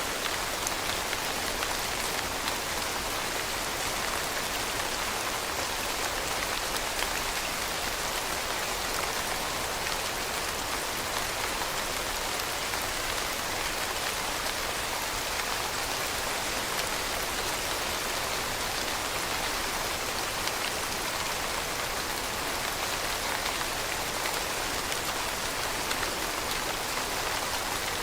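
Steady rain falling, an even hiss with many small drop ticks on a hard surface.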